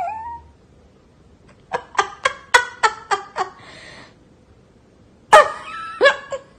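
A person laughing in quick, repeated bursts, about four a second, with a breathy gasp in between; a second, louder run of laughter starts near the end.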